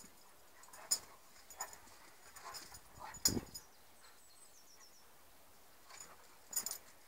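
Northern Inuit dog and Saarloos-Inuit cross play-fighting: short, scattered bursts of dog noise from their rough play, the loudest about three seconds in, then a quiet spell of about two seconds before a few more bursts near the end.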